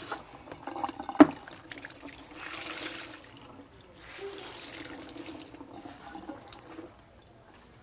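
Water running and splashing in a sink, in two spells, with a single sharp knock about a second in.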